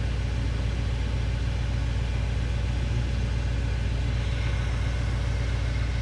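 BMW car engine idling steadily with the air-conditioning compressor switched on, a constant low hum.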